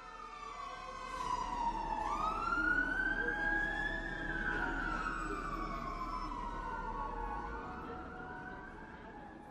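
A siren wailing in slow sweeps: the pitch falls, rises and falls again over several seconds. It swells in loudness and then fades.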